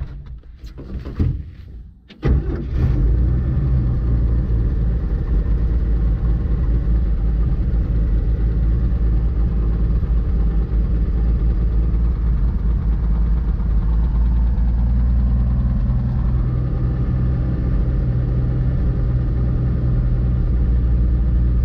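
The 1952 GMC truck's six-cylinder engine starts about two seconds in and then runs steadily, with its note changing slightly about sixteen seconds in.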